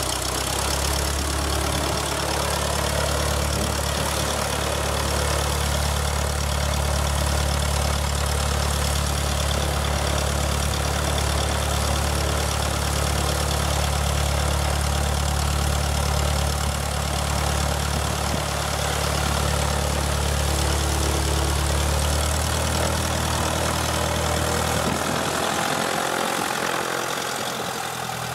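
Single-engine light aircraft's piston engine idling steadily just after start-up, its propeller turning. In the last few seconds the engine note changes as the plane begins to taxi.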